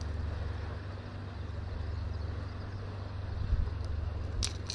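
A steady low drone under a faint even background hiss. Near the end come a couple of sharp clicks as the fishing lure is clipped onto its snap.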